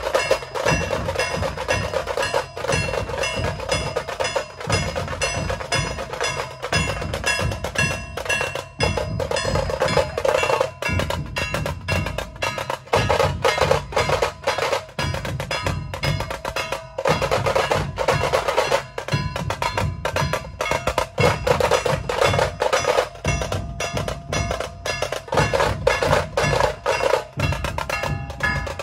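Dhol-tasha ensemble playing: large barrel dhol drums beating a low, pulsing rhythm under the rapid, sharp strokes of the tasha drums, continuous and loud.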